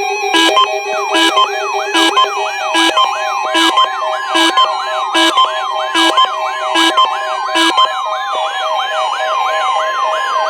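Layered electronic siren and alarm tones. A steady alarm tone sits under rising siren whoops about twice a second, with sharp clicks every 0.8 s that stop about three-quarters of the way through, and a long falling glide in the second half.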